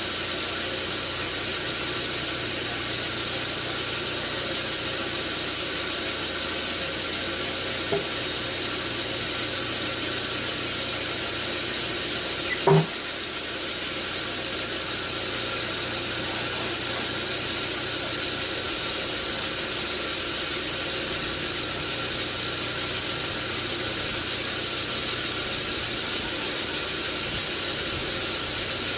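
Sawmill machinery running steadily, with a sharp knock about halfway through.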